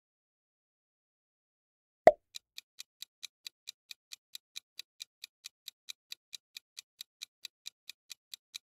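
Silence, then about two seconds in one short, sharp pop, followed by a steady, clock-like ticking at nearly four ticks a second: a countdown timer sound effect running while the quiz question is on screen.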